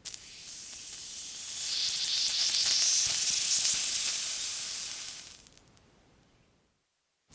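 Water sizzling on a hot surface: a high hiss that starts suddenly, swells over the first couple of seconds, then dies away over the next few seconds.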